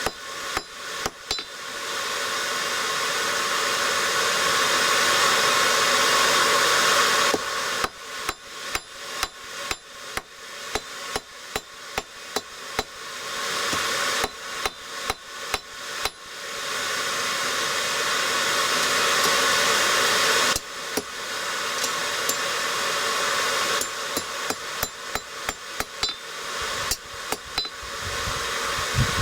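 Hammer striking hot steel on an anvil while forging a hook, in runs of quick blows about two or three a second. Between the runs comes a steady rushing noise from the forge.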